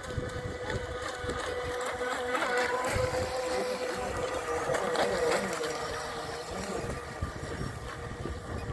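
Radio-controlled model racing boats running flat out, their motors making a high whine that bends in pitch and swells as the boats pass close about two to five seconds in, then fades as they move away.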